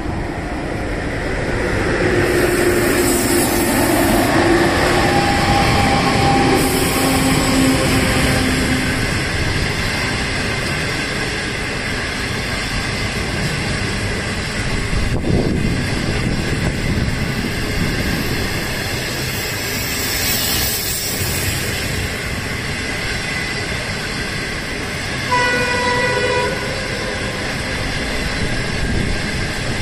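A locomotive-hauled China Railway passenger train of green coaches passing close by, its wheels on the rails making a steady rushing rumble. A steady tone drops slightly in pitch early on as the locomotive goes by, and a short, louder high tone sounds about 25 seconds in.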